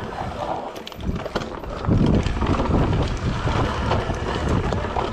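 Mountain bike descending a dry, rough dirt trail: tyres crunching over dirt and stones and the bike rattling with many small knocks, louder from about two seconds in. Wind buffets the microphone throughout.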